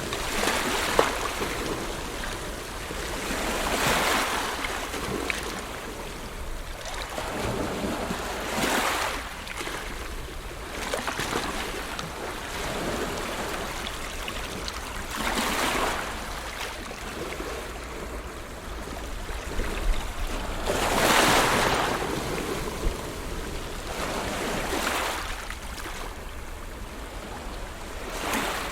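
Ocean waves breaking and washing ashore, a steady rush that swells up with each breaking wave every few seconds.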